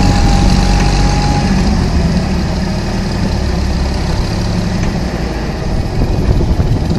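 Trackmobile 5TM rail car mover's Hercules G-3000 engine running at low speed. A thin steady whine sits over it and fades out about a second and a half in.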